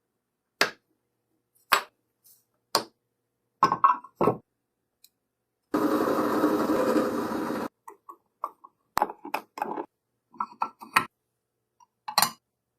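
A series of short, sharp clicks and knocks, about a dozen spread unevenly, with about two seconds of steady noise in the middle.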